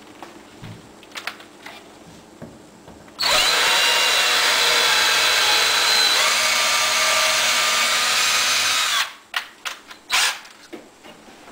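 Cordless drill boring a hole through a wooden cabinet door for a handle, its motor running steadily for about six seconds and then stopping. Light clicks and knocks of the drill being handled come before and after.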